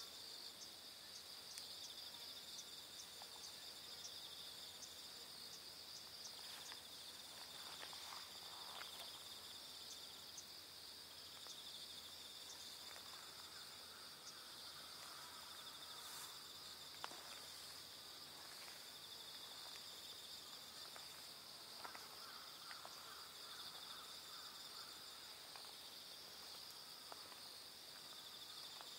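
Faint, steady high-pitched insect chorus, with a few soft clicks scattered through it.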